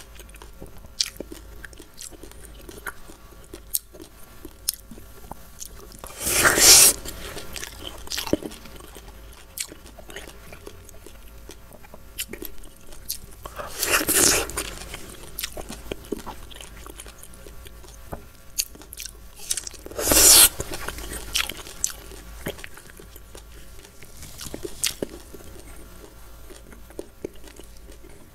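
Close-miked eating of white dragon fruit: three loud, juicy bites a few seconds apart, with quieter chewing clicks between them.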